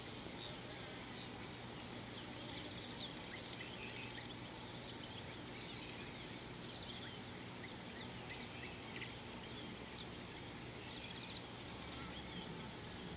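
Scattered short, high bird chirps and calls over a steady background hiss with a faint low hum.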